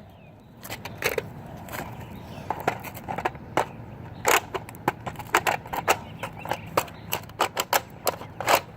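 Irregular plastic clicks and clunks from a Nerf Rival Apollo blaster being handled and readied for a dry fire, with two louder clunks about four seconds in and near the end.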